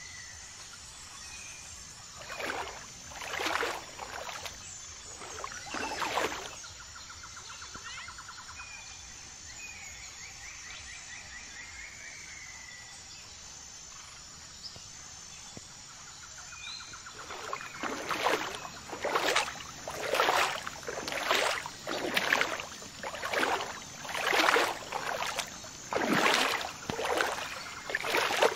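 Water splashing: a few splashes in the first seconds, then a run of about ten splashes roughly one a second through the last ten seconds, from a hooked fish thrashing at the surface as it is pulled in. Faint chirping calls sound between the splashes.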